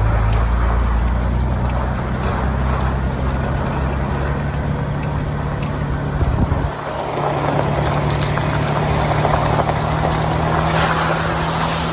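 A motor running steadily under wind noise, its low hum shifting to a different pitch about six and a half seconds in.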